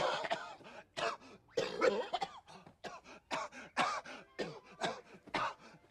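A man coughing hard in a long, hacking fit, about two to three rough coughs a second, after drawing in a deep hit of marijuana smoke.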